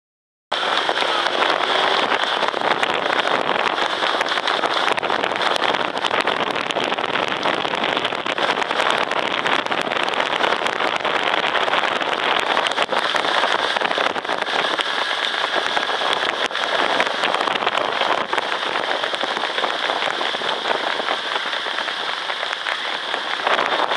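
Harness racehorses pulling sulkies at speed on a dirt track: a steady rushing clatter of many hooves and wheels on the dirt.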